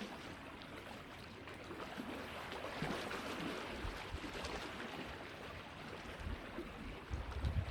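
Lakeside ambience: a steady rush of wind and lake water washing, with low wind buffeting the microphone near the end.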